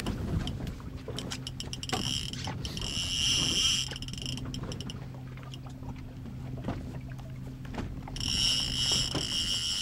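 Fishing reel clicking as it is cranked in against a striped bass on the line, over the low steady hum of the boat's idling engine. A high-pitched whine comes in twice, about two seconds in and again near the end.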